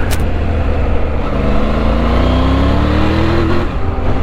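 Triumph Tiger 900 three-cylinder motorcycle engine running under way with wind rush. Over about two seconds it pulls up through the revs in one steady rise, then comes off the throttle.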